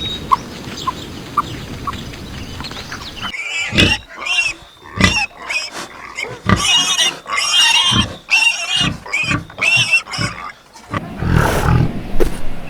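Soft short chirps over a steady hiss, then, about three seconds in, pigs grunting and squealing in a quick run of short, loud calls.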